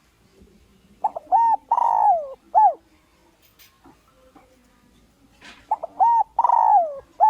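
Spotted dove cooing: two phrases, each a couple of short notes, then a long coo that falls in pitch, then a short closing note. This is the decoy call used to draw wild males in.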